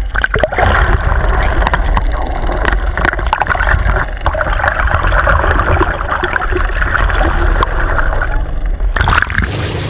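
Muffled underwater sound from a camera below the surface: a low rushing rumble of water with scattered clicks and crackles and a steady hum in the middle range. Near the end it changes back to open-air boat noise.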